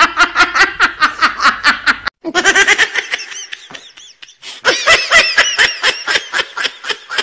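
Laughter in quick, rapid-fire 'ha-ha' pulses, about seven a second, that breaks off for a moment about two seconds in and then starts again.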